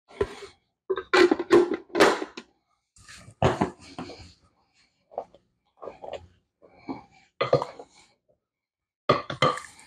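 Short, irregular knocks and scrapes of kitchenware: the plastic lid of an ice cream maker being set in place, then a wooden spatula scraping and tapping a mixing bowl as thick whipped cream mixture is worked out of it.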